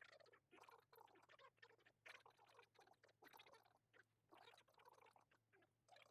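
Near silence with faint, irregular small clicks and light scraping over a low background hum.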